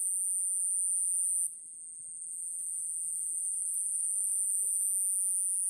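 High-pitched insect chorus, a steady shrill drone that drops suddenly about one and a half seconds in and slowly swells back up.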